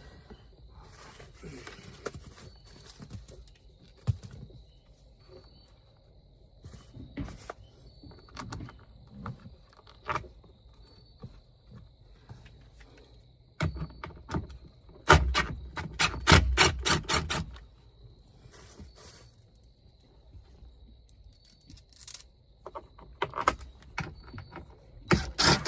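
Scattered handling clicks and scrapes of interior trim work, with two bursts of rapid, even clicking, one about fifteen seconds in and one near the end: a hand ratchet with an 8mm socket turning screws.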